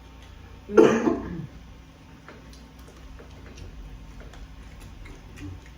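A short, loud vocal sound with falling pitch about a second in, then faint, scattered clicks of someone eating: chewing and handling food.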